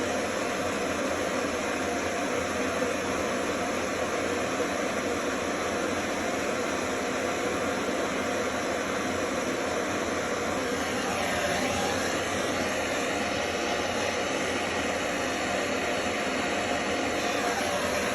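Handheld gas soldering torch burning with a steady rushing hiss while copper pipe is soldered. The tone of the hiss sweeps about eleven seconds in and again near the end.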